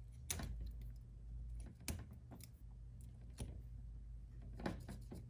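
A few light, separate clicks as a Cat6 keystone jack and its punched-down cable are handled, over a faint steady low hum.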